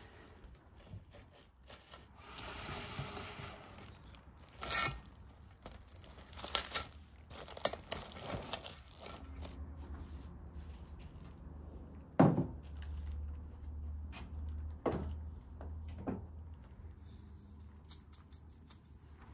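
Hands working raw lamb pieces in an enamel bowl: irregular handling noises and scattered clicks, with one sharp knock about twelve seconds in and two lighter ones a few seconds later.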